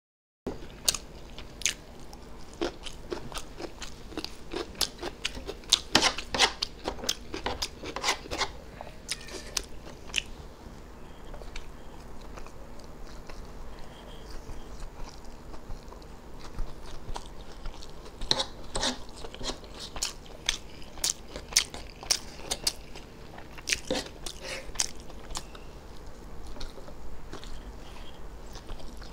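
Close-miked eating: a man chewing mouthfuls of spicy egg chow mein noodles, with many sharp clicks and smacks. They come in two busy spells, in the first third and again past the middle, with a quieter stretch between.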